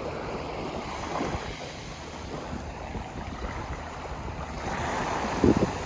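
Strong wind buffeting the microphone over surf washing on the shore, with a short louder bump near the end.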